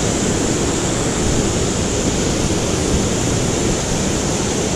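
Steady rushing noise of fast-flowing creek water, which cuts off suddenly at the end.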